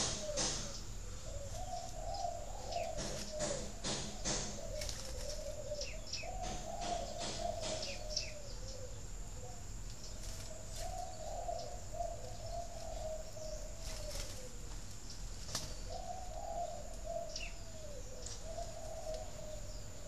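Spotted doves cooing, one soft rising-and-falling coo phrase after another, with scattered sharp clicks between. This is the breeding-season cooing that breeders use to prompt hens to lay.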